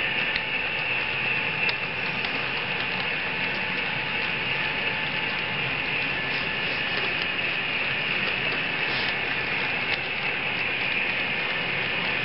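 Model railroad freight cars rolling along the track: a steady mechanical running noise from wheels on rail, with irregular light clicks as they pass over rail joints.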